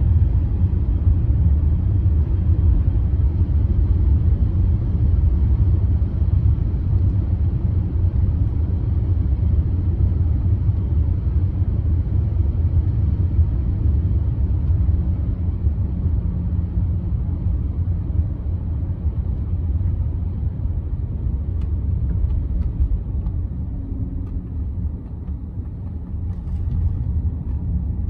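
Steady low rumble of engine and road noise inside the cabin of a 1998 BMW 740iL while driving, its 4.4-litre V8 running smoothly under the tyre drone; it eases off slightly near the end.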